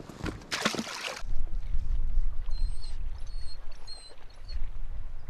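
Sea kayak on the water, with wind rumbling on the microphone and water sounds around the hull, after a short rush of noise in the first second. A few short high chirps come in the middle.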